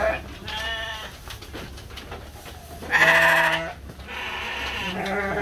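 Sheep bleating in a pen, several calls with the loudest and longest one about three seconds in.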